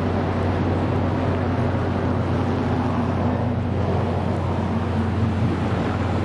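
Steady, even running noise of a vehicle, with a deep hum and no clear beat or sudden sounds.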